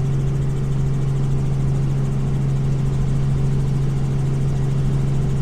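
Steady mechanical drone with a strong constant low hum, running evenly without change.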